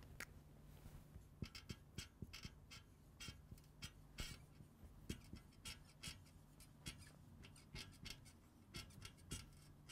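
Marker writing on a whiteboard: a faint run of short squeaks and taps, one per pen stroke, as letters are written.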